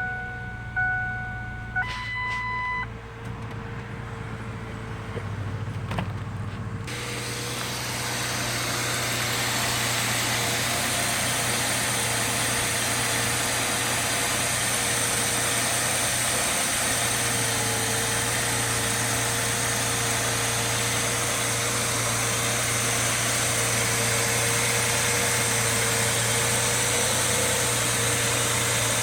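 Truck's dashboard warning chimes sound in the first few seconds over the engine idling. About seven seconds in, the idle becomes fuller and louder and then stays steady.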